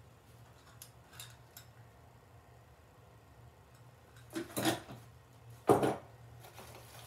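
Bags of small engine parts being handled and sorted: a few light clicks, then two louder short rustling clatters about four and a half and six seconds in, the second the loudest.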